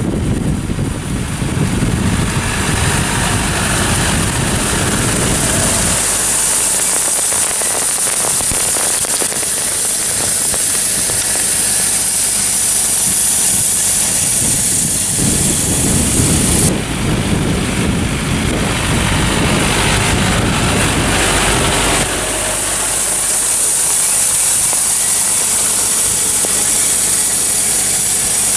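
John Deere tractor running under way, with a steady high hiss over the engine. The low rumble is heavy at first, drops away about six seconds in, returns around fifteen seconds and drops again about twenty-two seconds in.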